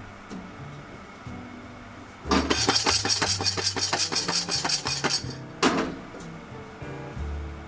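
Partly roasted coffee beans rattling inside a glass-lidded saucepan as it is shaken over a gas burner: a fast, loud rattle of about three seconds. A single clunk follows as the pan is set back down on the burner grate.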